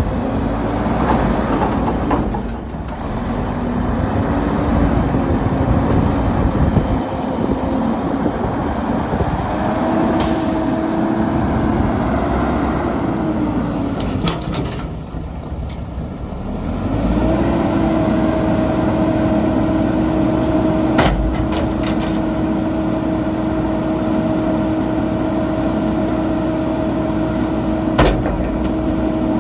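Mack LE garbage truck's diesel engine running, its pitch wavering, then held steady at a raised speed from about seventeen seconds on. A short hiss of air about ten seconds in, and two sharp knocks later on.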